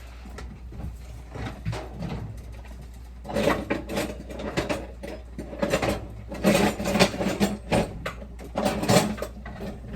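Clattering and scraping of kitchen utensils and cookware, irregular knocks and rattles that start about three seconds in and grow busier toward the end.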